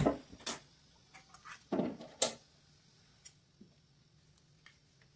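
Steel ladle clinking and scraping against a steel kadai and bowl while chicken curry is scooped out, a few sharp knocks and a short scrape in the first couple of seconds, then only faint ticks.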